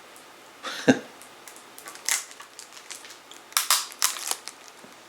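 Plastic CD jewel case being handled: a sharp knock about a second in, then a click and a short run of clicks and rustles a little before and after the four-second mark.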